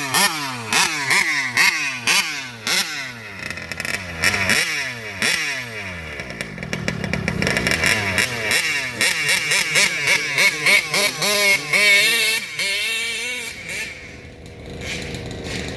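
Two-stroke RC car engine revved in a string of quick throttle blips, each a rising whine that drops back, then held at higher revs with a fast wavering pitch before it falls away about fourteen seconds in.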